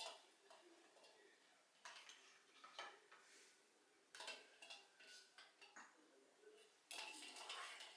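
Faint, scattered clinks and taps of a metal spoon and eggs against a stainless steel bowl of ice water as steamed eggs are lowered in, the loudest cluster near the end.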